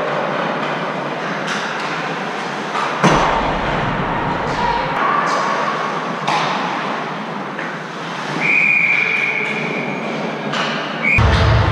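Ice hockey play near the net: skates scraping on the ice under a steady rink noise, with a loud bang about three seconds in. Near the end a referee's whistle blows one steady blast of about two seconds as play is stopped.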